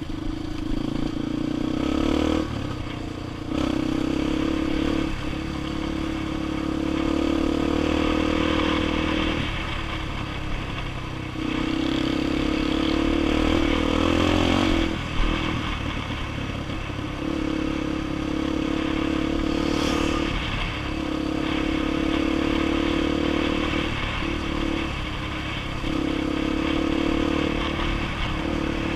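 Single-cylinder four-stroke trail bike engine running under way, held at a steady pitch for a few seconds at a time, then easing off and picking up again every few seconds. About halfway through the engine revs up and drops off sharply.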